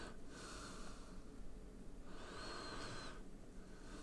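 Faint breathing: one breath trailing off just after the start and another about two seconds in, each carrying a slight high whistle.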